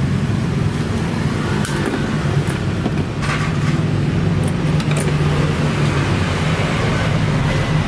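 Steady low engine hum in the background, with a few light clicks and rustles as wiring and small parts are handled.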